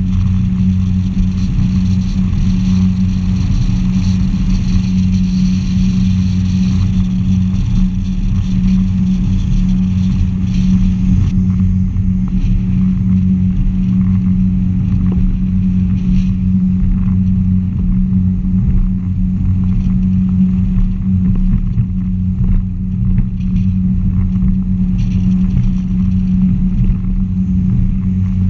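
Yamaha SX190 jet boat's engine running steadily underway, a constant low hum, with a hiss of water and wind over it. The hiss thins out about a third of the way through while the hum holds steady.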